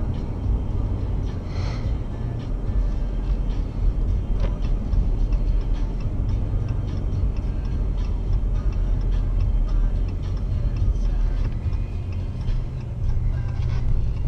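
Steady low rumble of road and engine noise inside the cab of a 2014 Dodge Ram 1500 pickup driving at about 30 to 40 mph.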